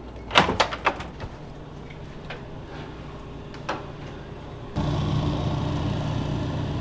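Clicks and knocks of a hotel room door's keycard lock and latch as the door is opened, with a few lighter clicks after. About three-quarters of the way through, a steady hum with a low drone comes in suddenly: a wall-mounted air-conditioning unit running.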